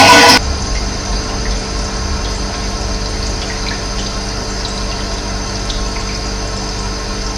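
Steady rush of running water with a low rumble underneath. A louder rushing sound cuts off abruptly about half a second in.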